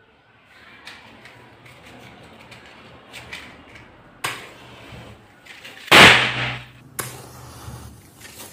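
Safety matches struck against a matchbox three times, each flaring up with a short hiss; the middle strike is the loudest. Before them, faint rustling and clicks of the matchbox being handled.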